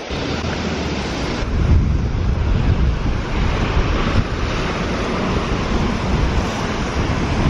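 Strong wind buffeting the microphone, an irregular low rumble, over the steady rush of a fast, clear mountain river.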